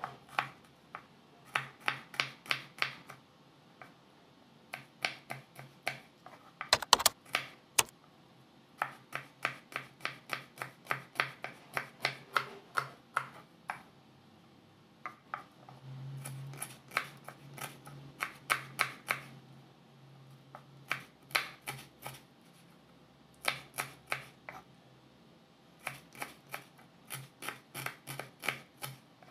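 Kitchen knife chopping garlic cloves and then shallots on a wooden cutting board: quick runs of sharp taps, several a second, broken by short pauses. There are two louder knocks about seven seconds in.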